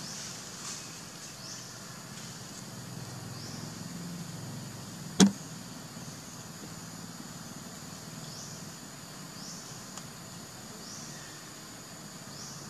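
Outdoor ambience: a steady high-pitched drone with a short rising chirp repeating about once a second, and one sharp click about five seconds in.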